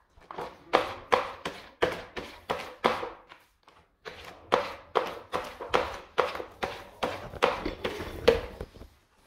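Paint roller being rolled back and forth through paint on the ribbed ramp of a plastic roller tray to load it: a quick series of rolling strokes, about three a second, with a short pause about halfway through.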